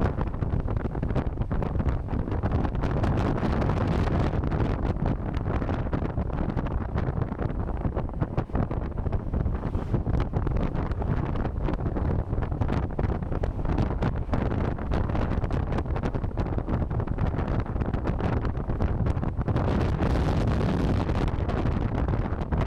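Steady, heavy wind rush buffeting the microphone of a rider on an electric motorcycle at speed.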